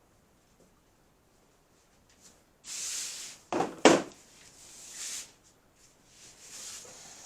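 A scraping, sliding noise followed by two sharp knocks in quick succession, then more faint scrapes: objects or containers being handled and set down.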